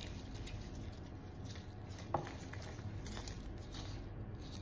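Faint rustling and light taps of hands handling flower stems and leaves on a wooden worktable, with one sharper tap about two seconds in.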